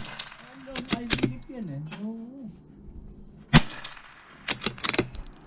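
A rifle shot about three and a half seconds in, ringing briefly after the crack, just after the tail of another shot at the very start. About a second after the shot come several quick sharp cracks and clicks.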